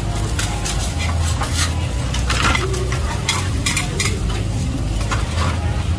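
Metal spatulas scraping and clacking irregularly on a large flat iron griddle, a dozen or so short strokes, while green mussel omelettes (hoi tod) sizzle in hot oil. A low steady hum runs underneath.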